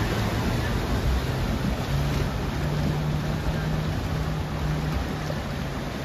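A 4WD's engine running under load as it drives through a fast-flowing river, over the steady rush of water. The engine note steps up about two seconds in.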